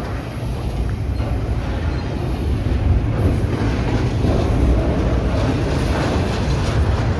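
Mixed manifest and intermodal freight train rolling past: a steady low rumble of wheels on rail, growing a little louder about three seconds in.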